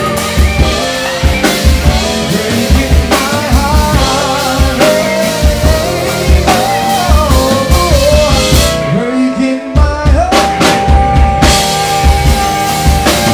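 Live band playing: a man singing into a microphone over drum kit and guitar, with a steady kick-drum beat. The drums and band drop out for about a second near the middle, then come back in under a long held sung note.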